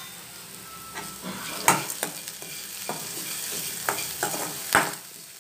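Chopped onion, curry leaves and dals sizzling in oil in an aluminium kadai while a steel spoon stirs them, scraping and knocking against the pan several times. This is the sautéing stage of a South Indian tempering.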